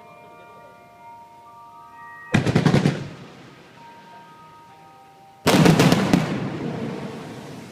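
Fireworks going off in two loud bursts of rapid cracking bangs about three seconds apart, the second longer and fading away over a couple of seconds. Music with held notes plays underneath.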